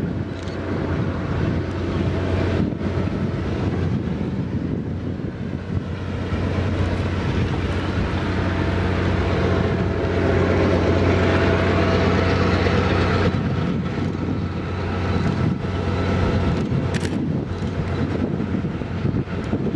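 Diesel locomotive hauling a passenger train past, its engine giving a steady low drone over the rumble of the train, loudest around the middle and easing after about 13 seconds.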